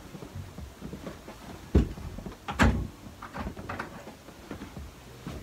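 A wooden room door being shut: two solid thumps about a second apart near the middle, among smaller knocks and handling noises.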